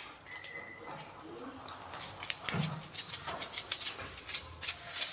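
Irregular light clicks and taps, several a second, starting after a brief faint beep-like tone near the start.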